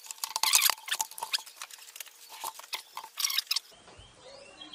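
Rapid plastic clicks and rustling as a drone flight battery and its charging cables are handled and plugged in. It cuts off abruptly near the end, leaving only a faint high steady tone.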